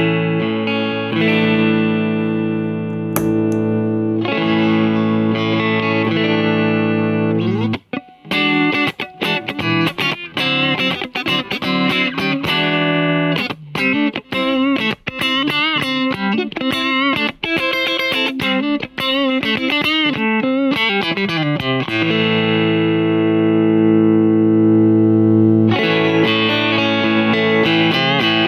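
Electric guitar played through a 1970s Maxon Compressor pedal. Strummed chords are left to ring with long, even sustain, then from about eight seconds in comes a run of picked single notes with bends and vibrato. From about twenty-two seconds the playing returns to long ringing chords.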